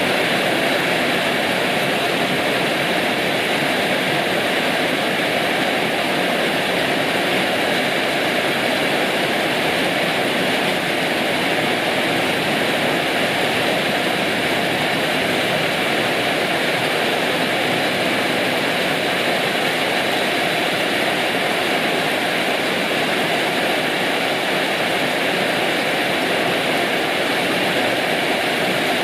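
Heavy rain falling steadily, a dense, even rushing noise with no breaks.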